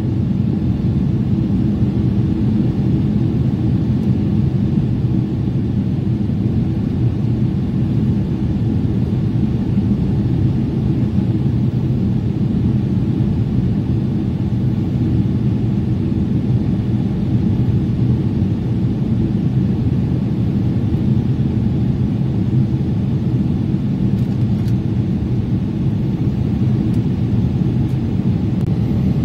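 Airliner cabin noise on landing approach: a loud, steady low rumble of the jet engines and rushing air, heard from a window seat with the wing flaps extended.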